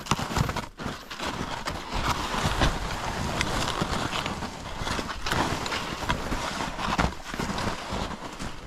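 Short, wide forest skis (ski-shoes) sliding and crunching down through snow on a descent, with irregular scrapes and knocks throughout.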